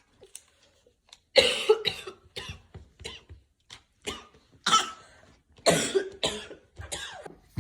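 A person coughing repeatedly, a mucus cough: a string of more than a dozen short coughs in quick bouts, starting about a second and a half in.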